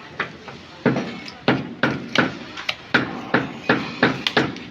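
Hammer tapping stone facing tiles into place during tile fitting: a quick run of sharp knocks, about three a second and unevenly spaced.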